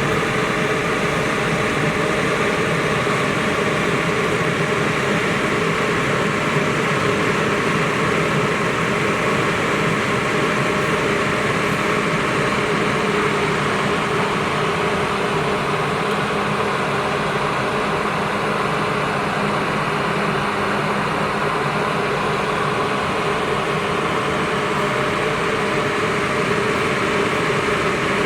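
Plasma cutter running continuously: a steady, loud hiss with a buzz underneath, unbroken throughout.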